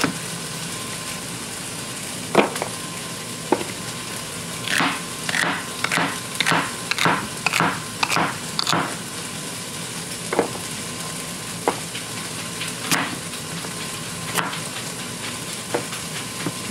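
Chef's knife chopping through celery stalks onto a cutting board: a series of crisp, crunchy cuts, a quick run of about two a second in the middle and slower single cuts before and after. Under it runs a steady sizzle of chicken frying in a pan.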